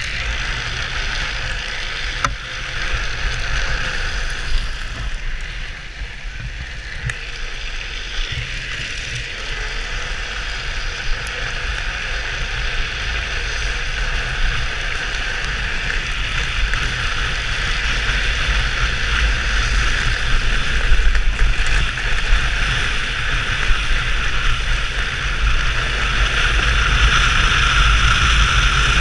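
Wind buffeting a helmet-mounted microphone over the steady hiss of a drift trike's PVC-sleeved rear wheels rolling and sliding on asphalt at speed, growing louder toward the end.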